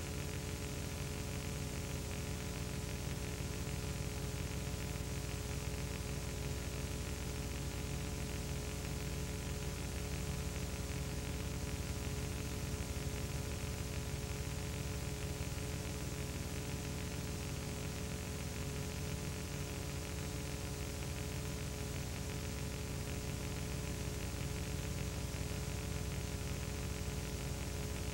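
Steady hiss with a constant electrical hum and nothing else: the empty soundtrack of a silent home-movie film transfer.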